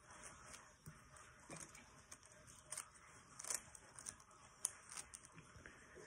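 Faint, irregular clicking of a plastic 3x3 Rubik's cube as its layers are turned quickly by hand, with a couple of louder clacks near the middle.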